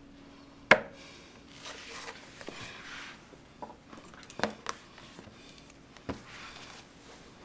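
A sharp knock on a table about a second in, then a few softer knocks and some rustling, over a steady low hum.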